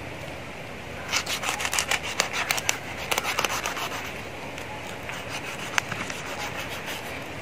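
Knife blade scraping the scales and grime off the skin of a large tuna in quick, rasping strokes. The scraping is busiest from about a second in until about four seconds in, then continues as lighter, scattered scrapes.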